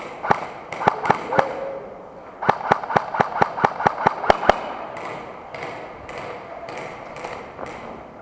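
Airsoft guns firing in quick strings: a few sharp cracks at the start, then a fast run of about a dozen shots at roughly six a second. Softer, fainter pops follow at a slower pace.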